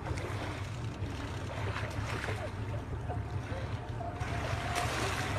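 Boat engine running steadily at low speed, a constant low hum, with faint voices at times.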